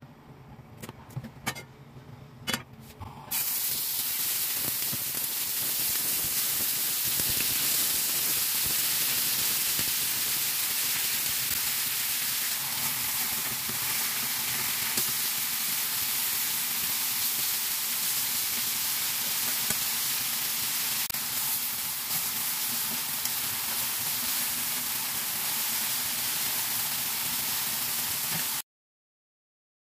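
Chicken cutlets sizzling in hot oil in a cast-iron skillet. After a few quiet clicks, a loud, steady frying sizzle starts suddenly about three seconds in and then cuts off suddenly near the end.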